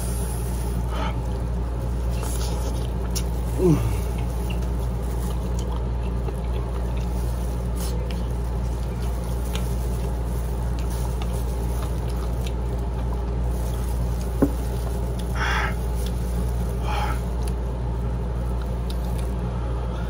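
Eating sounds from chicken wing adobo eaten by hand: a few short wet smacks and chewing noises over a steady low hum, with a brief falling squeak about four seconds in and two smacks near fifteen and seventeen seconds.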